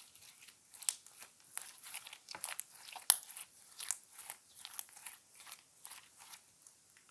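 Slime being squeezed and worked by hand, giving a quick, uneven run of short crackling pops, several a second.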